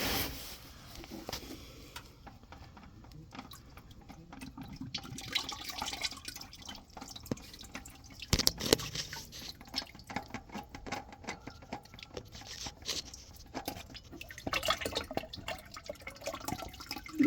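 Engine oil dripping and trickling from a loosened spin-on oil filter into an oil catch can, in many small irregular drips. A sharp knock comes about eight seconds in.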